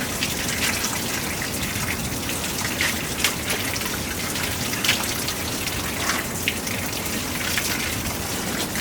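Steady rain falling, with scattered sharp drop hits close by at irregular moments.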